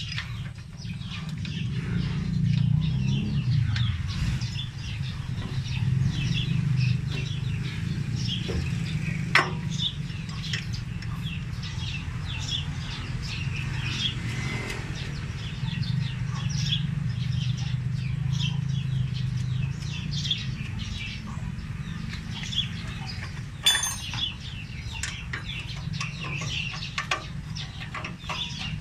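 Birds chirping over a steady low hum, with a sharp click about nine seconds in and a ringing metal clink later on from a wrench on the reaper's guide bolt.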